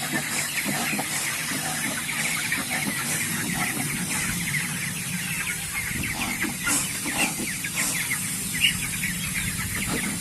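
A flock of 28-day-old broiler chickens peeping and chirping continuously, many short calls overlapping, over a steady low hum.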